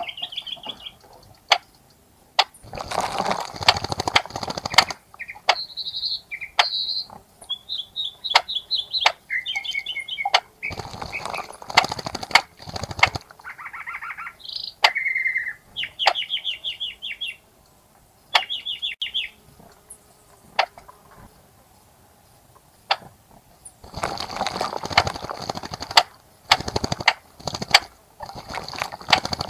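Small birds bathing in a bird bath: about four bursts of wings fluttering and splashing in the water, each a couple of seconds long. Between the bursts come short high chirps and trills and scattered sharp ticks.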